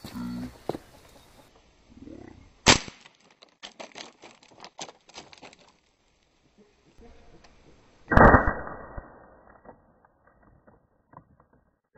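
Crosman C9 .20 calibre multi-pump air rifle firing a pellet into water bottles: one sharp, loud crack about two and a half seconds in, then scattered small ticks. A second loud burst with a short rushing tail comes about eight seconds in.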